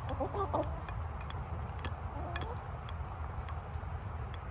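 Chickens clucking in a few short pitched calls, loudest in the first half-second and again about two seconds in, with scattered light clicks. A steady low rumble runs underneath.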